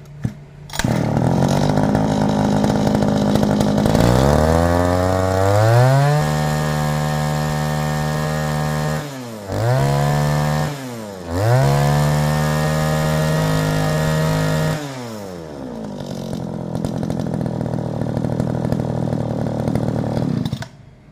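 Zenoah Komatsu G3K brush cutter's 34cc two-stroke engine starting up about a second in and idling, then revved up and held at high speed, with two quick drops of the throttle in the middle. It falls back to idle and is switched off suddenly near the end.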